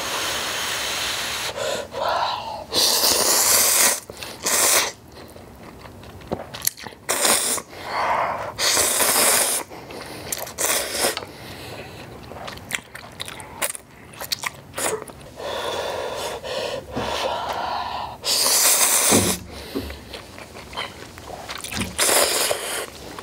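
A person slurping spicy instant ramyeon noodles: several loud, long sucking draws a few seconds apart, with chewing in the quieter stretches between.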